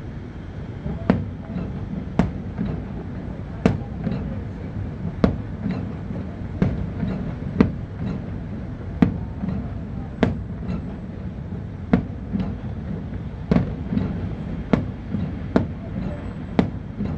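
Aerial fireworks shells bursting in an irregular series of sharp bangs and cracks, roughly one a second, over a steady low background rumble.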